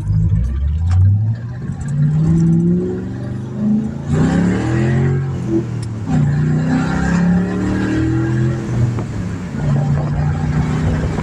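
A 2006 Mustang GT's 4.6-litre V8 accelerating hard, climbing in pitch and dropping back several times as it shifts up through the gears.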